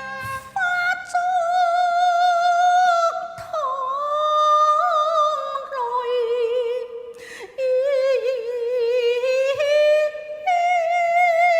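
Cantonese opera music: one high melodic line with wide vibrato on long held notes, sliding between pitches, with short breaks about three and seven seconds in.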